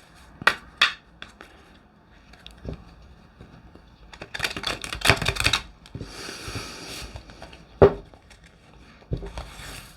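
Brand-new glossy tarot cards being shuffled by hand: quick runs of cards flicking and slipping against each other, with a few sharp taps. The deck is still stiff and new.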